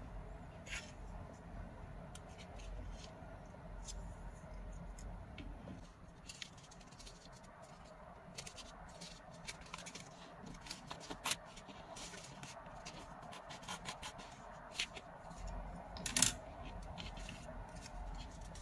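Origami paper crinkling and rustling as a folded paper crane is handled and its creases pressed, with many small sharp crackles and taps, two of them louder than the rest.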